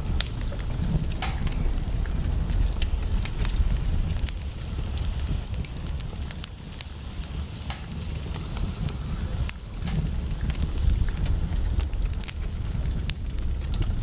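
Wood fire crackling in a fireplace: irregular sharp pops and snaps over a steady low rumble.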